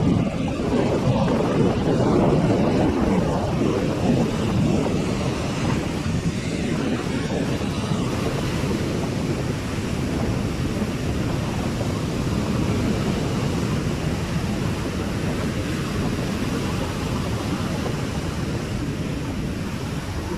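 Steady rumble of surf with wind buffeting the microphone, a little stronger in the first several seconds.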